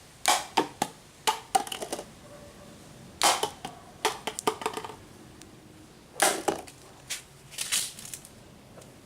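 Paper being handled and creased: crisp clicks and crinkles in short clusters, about a second or two apart.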